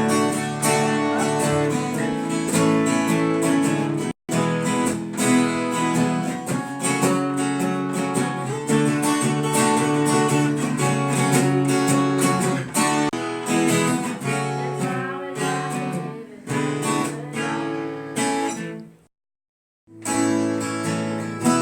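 Acoustic guitar being strummed and plucked, playing chords. The sound cuts out abruptly twice, very briefly about four seconds in and for about a second near the end.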